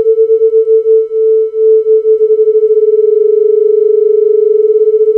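Akai Miniak synthesizer sounding two sine-wave oscillators near 440 Hz, one detuned against the other, so the steady tone throbs with beating. As the second oscillator's pitch is moved, the beats slow, quicken to a fast flutter around the middle, then slow again near the end.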